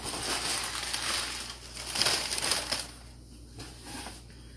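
Brown packing paper being crumpled and pulled out of a shipping box: a dense crinkling rustle, loudest around two to three seconds in, that then dies down.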